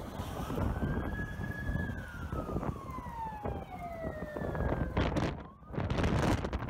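Emergency vehicle siren wailing once, rising to a peak about a second in and then falling slowly over the next few seconds. Strong wind rumbling on the microphone runs underneath it.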